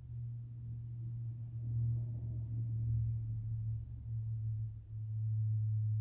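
A single low humming tone that swells in, holds steady with a slow waver, and dips briefly twice about two-thirds of the way through.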